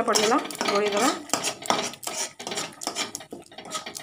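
Wooden spatula scraping and stirring thick masala paste around a non-stick kadai, in quick repeated strokes, with a few wavering squeaks in the first second.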